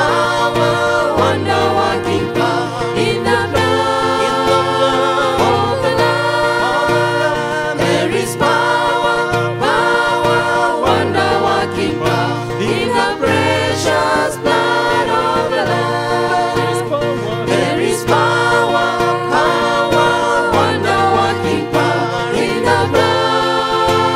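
A hymn sung by a group of voices over steady instrumental accompaniment, with low notes changing every second or so.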